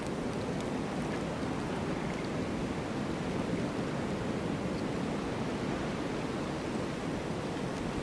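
Strong wind of a blizzard blowing steadily, a dense, even rush of noise with no single gust standing out.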